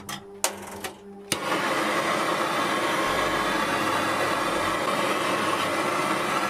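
A few sharp clicks, then a loud steady rushing noise starts suddenly about a second and a half in and cuts off abruptly near the end.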